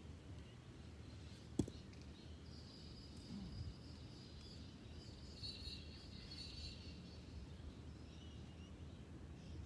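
Quiet outdoor ambience with faint bird chirping through the middle, and one sharp knock about a second and a half in.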